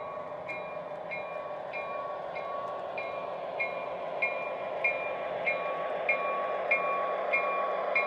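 Model diesel locomotive's sound system ringing its bell steadily, about twice a second, over the rumble of O gauge freight cars rolling along three-rail track. The sound grows louder toward the end.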